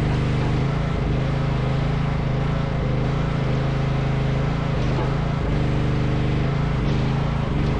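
Mini excavator engine running steadily at a constant speed.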